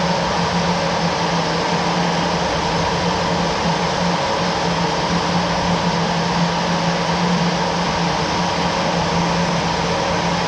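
Jet engine running steadily: an even rush of noise with a constant low hum and a higher whine, no change in pitch or level.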